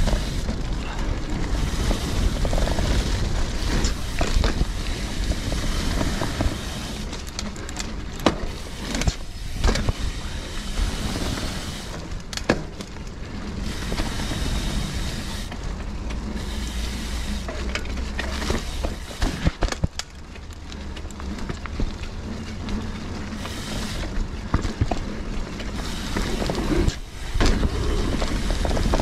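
Mountain bike ridden fast down dirt singletrack, heard from on the bike: a steady low rumble of tyres on dirt, with many sharp rattles and knocks from the chain and frame over roots and bumps.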